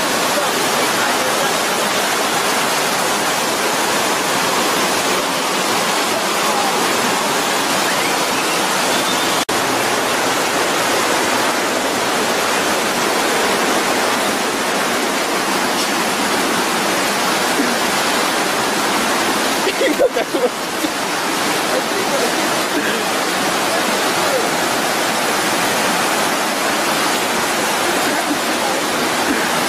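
Fast-flowing mountain river rushing over rocks: a steady, loud wash of white water. A few brief bumps come about two-thirds of the way through.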